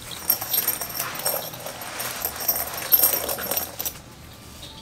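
Rustling of a nylon sling bag and its nylon webbing strap, with light clinks of buckle and zipper hardware, as the strap is let out and the bag is pulled on over the shoulder. It goes quieter near the end.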